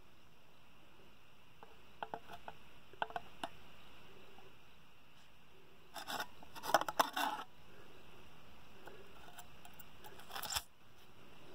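A desoldering iron's hot tip scraping and clicking against a transistor lead and solder joint on a circuit board: a few light clicks, then a longer burst of scraping about six seconds in and a short one near the end that cuts off suddenly.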